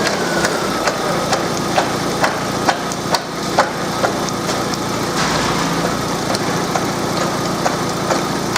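VAZ 16-valve 124 engine idling with its timing belt exposed, the belt knocking sharply about twice a second as the sprocket catches the stretch where its teeth are stripped. The knock comes from the sheared-off belt teeth, not from the engine itself. A whine falls in pitch over the first two seconds.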